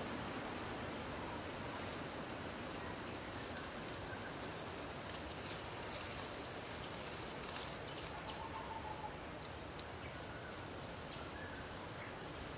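Steady high-pitched trilling of an insect chorus, a continuous shrill drone that holds the same pitch throughout.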